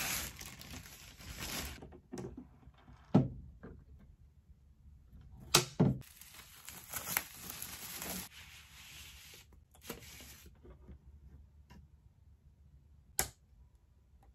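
Clear plastic record sleeves crinkling and rustling as vinyl LPs are slid in and out and handled, with a few sharp knocks; the loudest knock comes about three seconds in.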